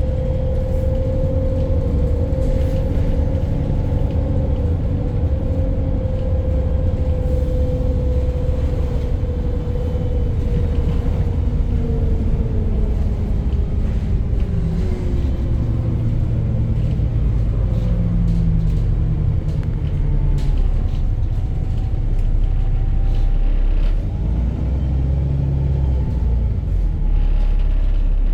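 VDL single-deck bus's diesel engine running on the move, with a knock that the driver takes for engine knocking the day after the exhaust blew. A whine sinks in pitch about ten to fourteen seconds in as the bus slows.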